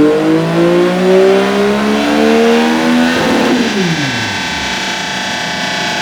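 Triumph Tiger 800's three-cylinder engine through a Dominator aftermarket exhaust, revving hard with its pitch slowly climbing, then shut off about three seconds in so the revs fall away quickly. Music with distorted guitar comes in at about the same moment.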